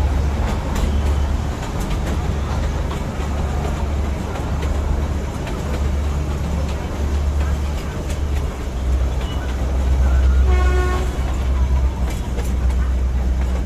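Narrow-gauge toy train running with a steady low rumble, and one short horn toot about three-quarters of the way through.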